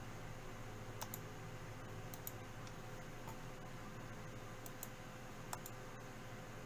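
Scattered sharp clicks from a computer mouse and keyboard, several of them in quick pairs, over a faint steady hum.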